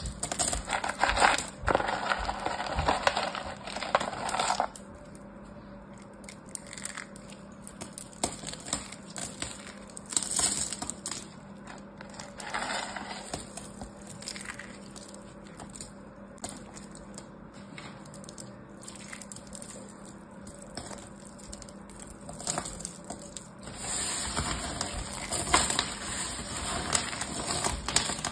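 Small pieces of carved soap being scooped up, squeezed and dropped by hand, crackling and clicking against each other and pattering onto the table. The sound comes in bursts of dense clicks, loudest in the first few seconds and again near the end, with quieter stretches between.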